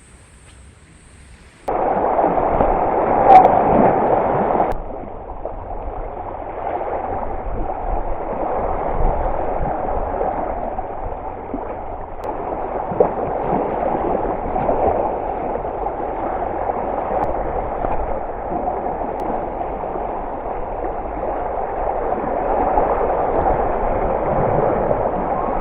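Small waves lapping and gurgling at the shoreline, a continuous sloshing water noise that starts abruptly about two seconds in after a quieter moment.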